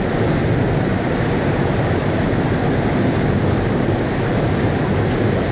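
Whitewater rapid and waterfall on a river, water rushing loudly and steadily over rock ledges.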